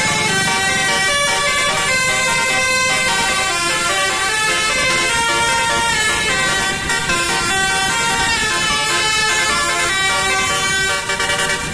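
Bus telolet 'basuri' air horn playing a fast multi-note tune, stepping between several horn pitches sounding together, and falling away near the end.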